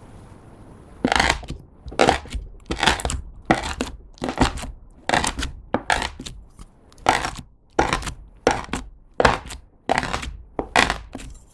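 Clear slime being kneaded and pressed by hand with glitter lipstick and lip gloss mixed into it, squishing and crackling. It goes as a quick, regular run of presses, about two to three a second, starting about a second in.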